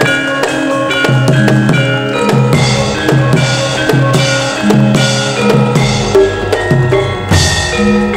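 Javanese gamelan ensemble playing wayang accompaniment: a steady run of struck metallophone notes over kendang drum strokes, with a louder metallic clash near the end.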